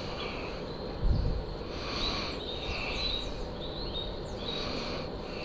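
Birds chirping in the background: short calls and quick sweeping notes, over a steady low background hum. A single dull thump about a second in.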